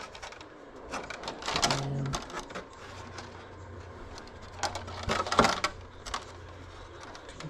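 Irregular clicks, taps and light plastic rattles as an RC car's body shell and chassis are handled, with a faint low hum underneath from about three seconds in.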